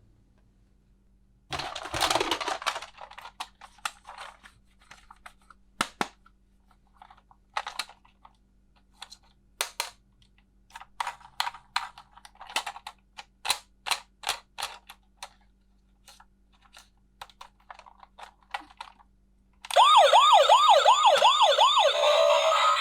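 Small hard plastic toy pieces clicking and rustling as they are handled and fitted together. Near the end a toy ambulance's electronic siren starts, a loud quick up-and-down warble.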